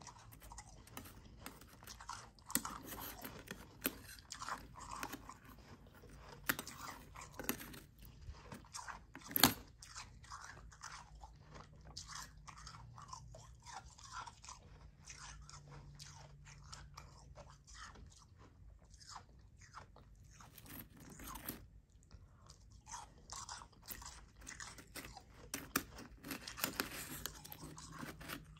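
Close-up chewing and crunching of soft, powdery shaved ice, a dense run of fine irregular crackles, with a metal spoon scooping it from an enamel bowl. One sharp click stands out about nine and a half seconds in.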